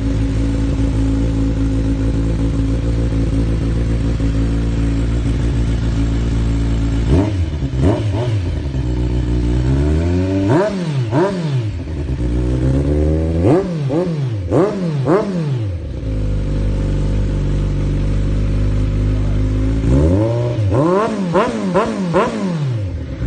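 Kawasaki Z1000 inline-four motorcycle engine through an SC-Project CR-T titanium slip-on exhaust, idling steadily for about seven seconds, then blipped on the throttle in short bursts that rise and fall in pitch, with a run of several quick blips near the end.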